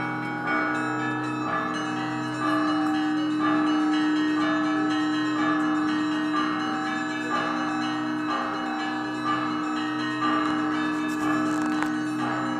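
Russian Orthodox church bells ringing a festive peal (perezvon), with smaller bells struck in a repeating pattern about once a second over the ringing of lower bells. A heavy low bell sounds strongly from a couple of seconds in.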